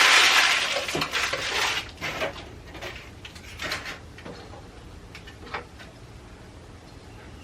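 Glass jars and dishes clinking and knocking as things are moved and cleared away, busiest in the first two seconds, then a few scattered clinks.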